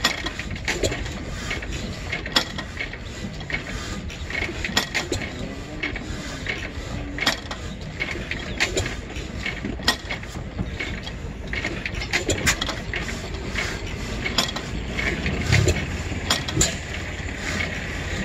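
Large horizontal stationary gas engine running slowly: irregular sharp mechanical clicks and clanks from its moving parts over a low rumble.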